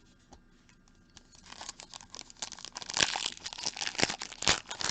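Foil trading-card pack wrapper crinkling and being torn open. It starts about a second and a half in, with several sharp crackles in the second half.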